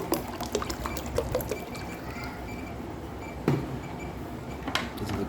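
Water being poured into a container, with scattered small clicks and one sharper knock about three and a half seconds in.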